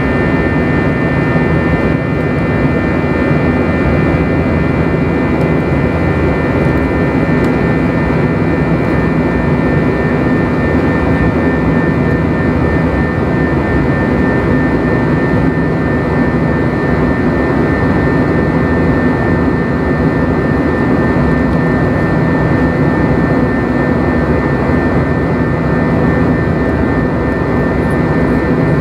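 Airbus A321-200's jet engines heard inside the cabin during the climb: a steady rush of engine and air noise with a constant high whine.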